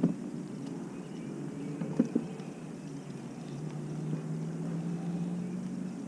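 Knocks on a small jon boat, one at the start and two close together about two seconds in, over a low steady background; from about three and a half seconds in a steady low motor hum joins.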